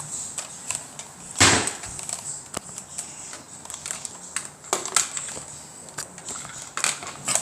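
Plastic clicks and knocks from a toy bolt-action blaster being worked by hand, with one louder, rougher burst about one and a half seconds in and a few sharp clicks after it.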